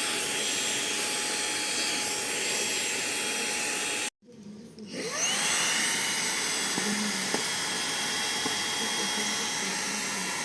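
Xiaomi Mini handheld cordless vacuum cleaner running steadily with a high whine. About four seconds in the sound cuts off abruptly, then the motor spins up with a rising whine and settles back into a steady run.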